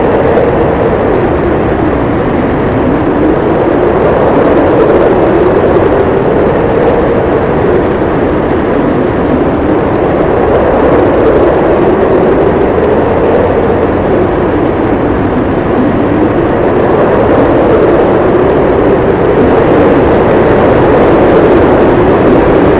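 Howling snowstorm wind blowing steadily, its pitch slowly rising and falling in long swells.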